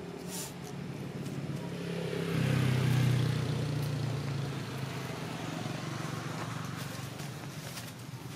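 A motor vehicle passing: engine hum and tyre hiss swell about two seconds in, peak around three seconds, then fade slowly.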